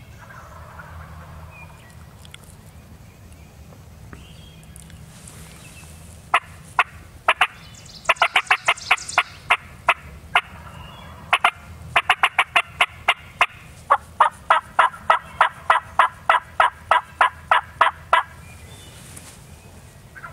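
Wild turkey yelping: runs of short, sharp, clear notes that begin about six seconds in, turn into a steady series of about three to four a second, and stop a couple of seconds before the end.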